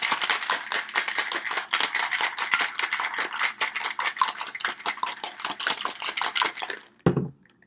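Ice cubes rattling hard inside a stainless-steel cocktail shaker being shaken, a fast continuous clatter of many knocks a second, chilling the margarita until the outside of the shaker frosts; it stops about seven seconds in.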